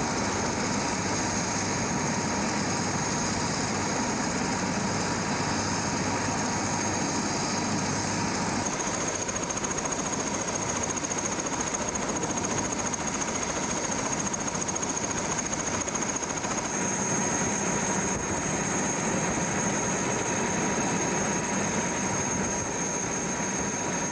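Helicopter's turbine engine and main rotor running while parked on the ground, a steady high whine over a dense rushing drone.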